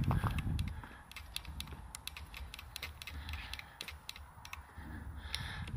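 Irregular light clicks and ticks of handling noise from a handheld camera rig as it is carried forward, with a few low thumps in the first half-second.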